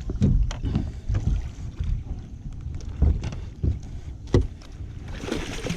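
Water slapping against the hull of an anchored fishing boat in strong current, with wind buffeting the microphone and a few sharp knocks, the loudest about four seconds in.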